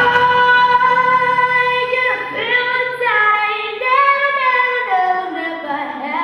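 A young girl singing solo into a handheld microphone: a long held note for about two seconds, then a phrase of shorter notes moving up and down with vibrato.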